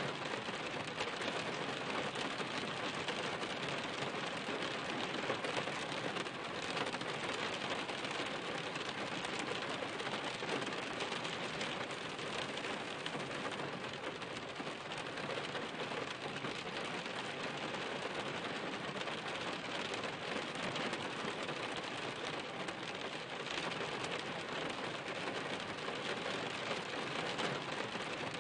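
Steady rain: a dense, even patter of many drops, with no let-up.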